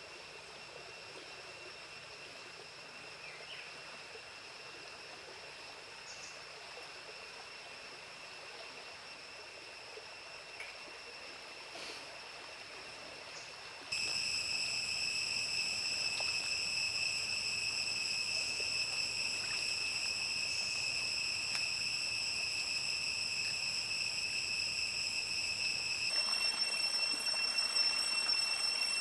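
Forest insects singing in a steady, unbroken high tone over a running stream. The sound gets louder about halfway through, and the pitch of the insect tone shifts slightly near the end.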